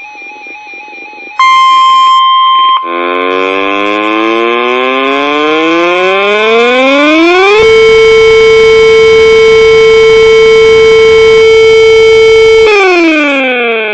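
Emergency alert signals: a buzzy warbling electronic signal, then a loud steady alert tone for about a second and a half, then a siren that winds up over about four seconds, holds a steady wail, and begins winding down near the end.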